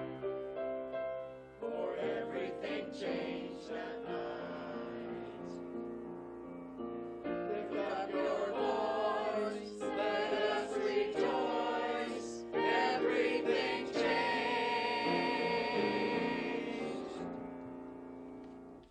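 Small mixed choir of men's and women's voices singing a Christmas cantata song, ending on a long held final chord that fades away near the end.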